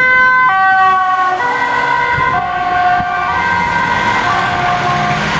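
Ambulance two-tone siren alternating between a high and a low note about once a second as the ambulance passes. About a second and a half in, the notes drop slightly in pitch and grow fainter as it drives away, and the vehicle's running noise comes up under them.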